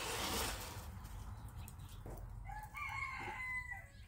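A rooster crowing once, starting about two and a half seconds in, its last note held and falling slightly. A short burst of noise comes at the very start.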